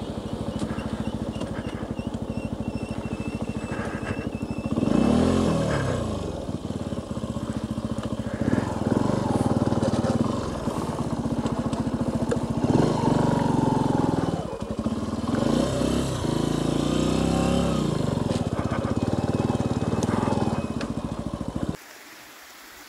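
Benelli TNT 125's single-cylinder 125cc four-stroke engine running under way, its pitch rising and dropping back again and again with the throttle, most strongly about five, nine, thirteen and sixteen seconds in. About a second before the end it cuts off suddenly to faint background.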